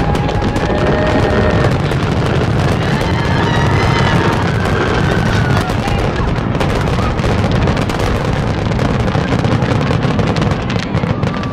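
Grand-finale fireworks barrage: aerial shells bursting in rapid, overlapping succession, a continuous run of booms and crackle with no let-up.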